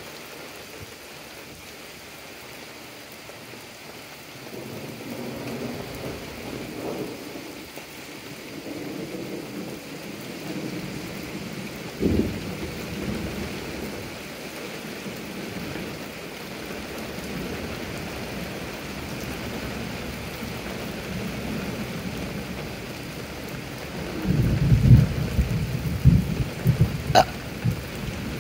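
Steady rain falling on wet pavement, with thunder rolling low from about five seconds in, a sharp clap about twelve seconds in, and a louder run of cracking, rumbling thunder near the end.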